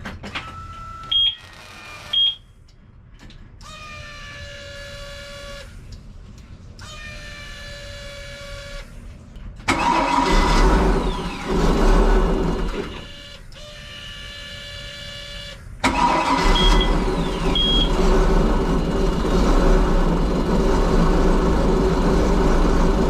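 Volvo Penta 5.7 GSi V8 marine engine being keyed on. The electric fuel pump primes twice with a steady whine of about two seconds each time, now pulling fuel after a clogged anti-siphon valve was cleared. The engine then fires and runs for about three seconds and stops, and after another pump prime it starts and keeps running, with short warning beeps at key-on and at start.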